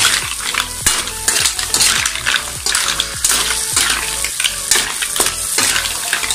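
Mussels in their shells being stirred in a hot metal wok: shells and a metal utensil clattering and scraping against the pan in irregular knocks, over a steady sizzle of frying butter and oil.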